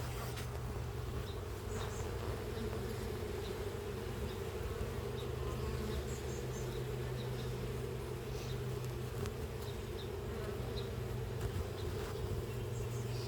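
Honeybees from an open hive buzzing in a steady, continuous hum.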